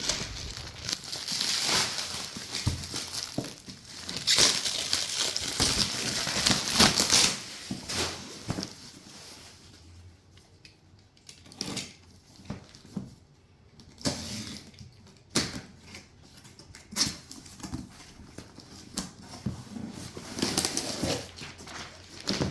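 Packaging being unwrapped: rustling, crinkling and tearing for about the first eight seconds, then scattered light knocks and taps as the box is handled.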